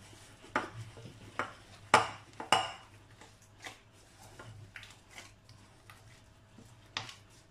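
Hands in plastic gloves mixing and kneading dough in a glass mixing bowl, with a scattering of short knocks and clinks as the glass bowl shifts on the stone counter and is struck by the hands; the loudest come about two seconds in.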